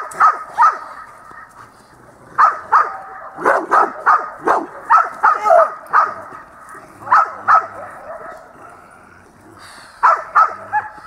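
Rottweiler barking in short, loud barks: three at the start, a quick run of about ten from about two seconds in, two more around seven seconds, and three near the end.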